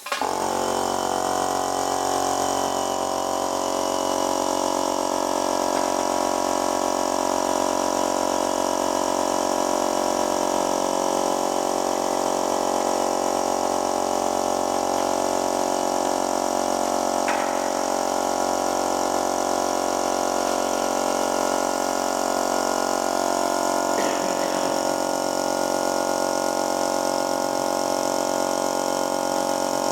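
A motor-driven machine switches on abruptly and runs at a steady, unchanging pitch with an even hum.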